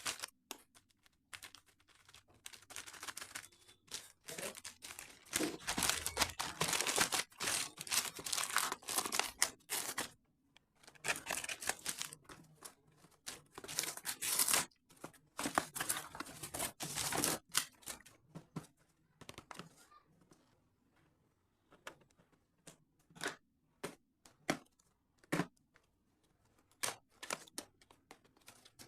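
Packaging being torn and crinkled open by hand, in dense bursts through the first half, then a run of separate short, sharp clicks and taps in the later part.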